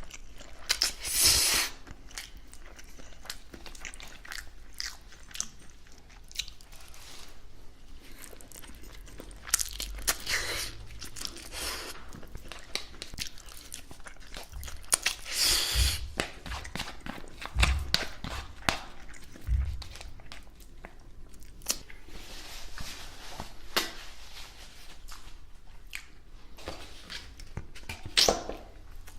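A person chewing and biting food close to the microphone: wet chewing with irregular crunches, a few louder bites every few seconds.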